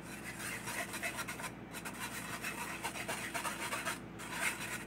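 Wire whisk scraped back and forth against a fine metal mesh sieve, rubbing thick pastry cream through the mesh to strain it smooth.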